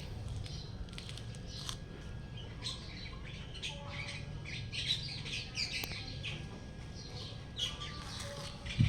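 Small birds chirping repeatedly in short high calls over a steady low rumble, with a brief knock near the end.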